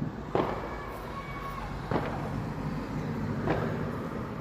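Distant fireworks going off: three sharp bangs about a second and a half apart, over a steady low rumble.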